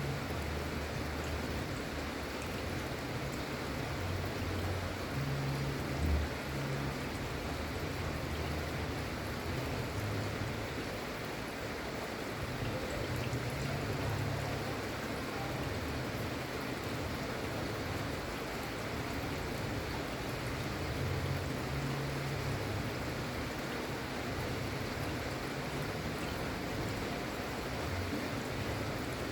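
Gentle, steady rain falling, an even hiss with no let-up. A low hum comes and goes underneath, and there is one short knock about six seconds in.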